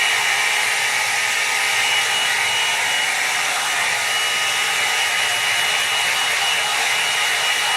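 Hair dryer running steadily: a constant rush of blown air with a thin, high, steady whine.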